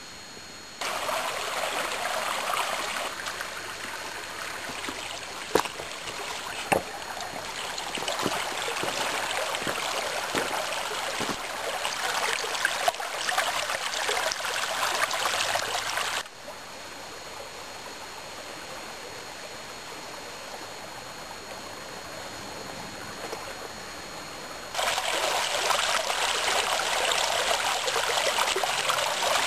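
A small rocky mountain stream running and splashing over stones in a little cascade, a steady rush of water. It grows louder less than a second in, drops abruptly about halfway through and jumps back up near the end, with a couple of sharp clicks early on.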